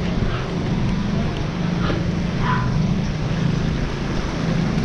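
Steady rumble and hiss of a bicycle riding through shallow floodwater, heard from a camera on the bike: tyres swishing through the water under wind rumble on the microphone.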